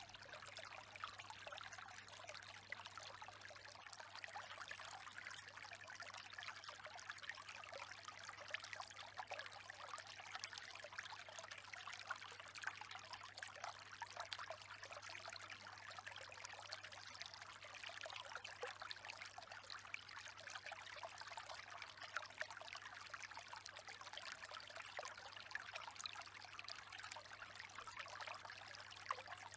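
Faint, steady running-water noise with a fine crackle, over a low steady hum.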